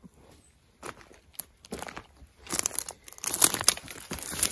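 Dry leaves, twigs and wood debris crunching and crackling as someone moves over the brushy ground, irregular and getting busier and louder in the second half.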